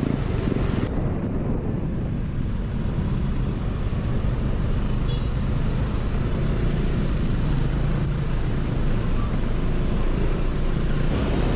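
Motor scooter engine running under way in traffic, with steady road and wind noise.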